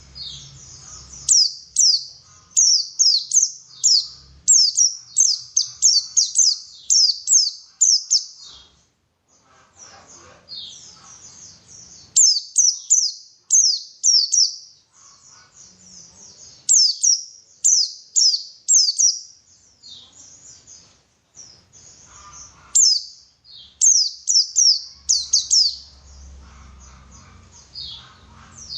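White-eye (pleci) singing: phrases of rapid, high, falling whistled notes strung close together, with short breaks between phrases.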